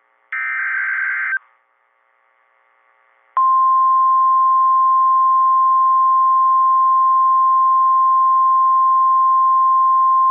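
An emergency alert's digital header burst, a harsh warbling data tone about a second long, ends; about two seconds later the weather radio's steady single-pitch warning alarm tone comes on loud and holds, over radio hiss. Together they mark the start of a new alert.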